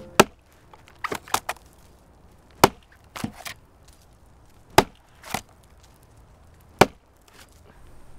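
Axe chopping into a wooden log: four heavy strikes roughly two seconds apart, with lighter knocks in between.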